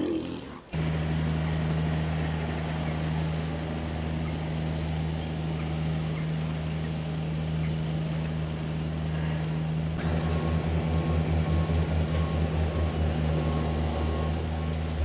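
A heavy vehicle's engine running steadily at a constant low note. About ten seconds in, a regular high-pitched reversing alarm starts beeping and the engine note begins to pulse.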